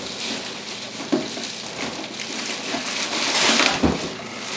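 Plastic packaging wrap crinkling and rustling as parts are handled and unwrapped, with a few light knocks. The crinkling is loudest about three seconds in.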